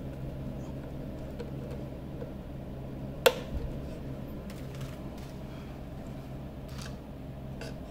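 Hands handling wiring and spade connectors inside a metal equipment case: one sharp click about three seconds in, then a few faint clicks and taps, over a steady low hum.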